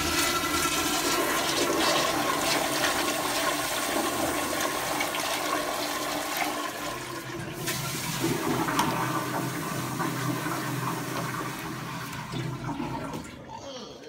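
Three public-restroom toilets flushed at the same moment: a long rush of water through the bowls that tails off near the end.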